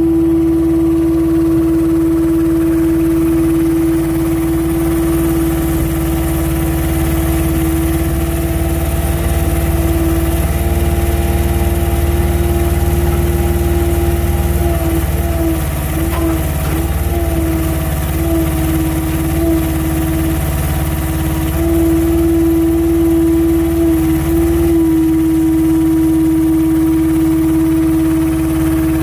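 Truck-mounted loader crane working: the truck's engine runs steadily to drive the hydraulics, with a steady hydraulic whine that wavers around the middle and again later as the crane moves a concrete slab in its clamp.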